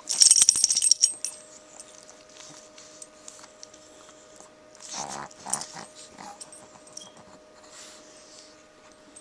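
Small dogs (Chihuahuas and a pug) tussling on bedding: a loud rustle of fabric with clicks in the first second, then a short vocal sound from one of the dogs about five seconds in, and light rustling between.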